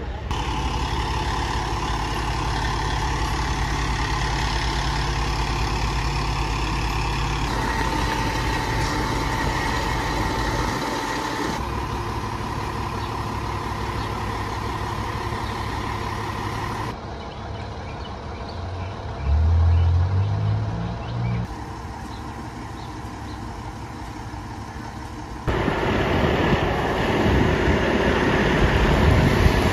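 Fire apparatus diesel engines idling in a series of cut-together clips, a steady low running sound that changes abruptly at each cut. About twenty seconds in, a loud low tone rises in pitch over roughly two seconds.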